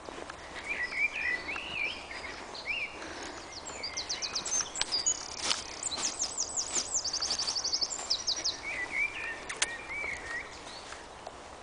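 Songbird singing: quick warbling phrases mixed with fast, very high trills, starting about a second in and stopping near the end, with a few sharp clicks in between.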